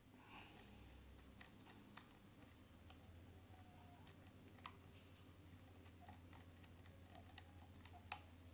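Faint, irregular small metallic clicks of a lock pick and tension wrench working the pins of a Keso 2000 lock, over a low steady hum.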